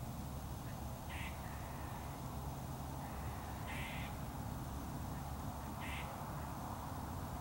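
A bird gives three short calls about two seconds apart, the middle one a little longer, over steady low background noise.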